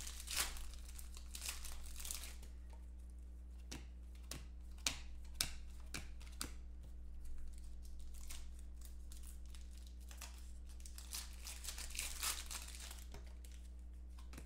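Foil trading-card pack wrappers crinkling and tearing as packs are opened by hand, in irregular bursts, with sharp little clicks of cards being handled in between. A steady low hum runs underneath.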